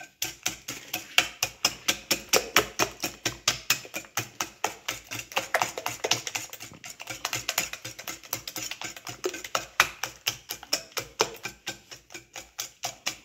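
Wire whisk beating eggs and sugar in a glass bowl, its wires clicking against the glass several times a second in a steady, fast rhythm.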